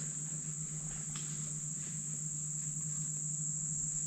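A chorus of insects trilling steadily and high-pitched in summer woods, over a low steady hum.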